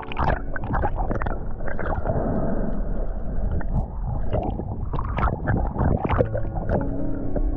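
Muffled underwater water noise as a diver swims below the surface: irregular gurgling and rushing water with short bubbly splutters, heard through a submerged camera.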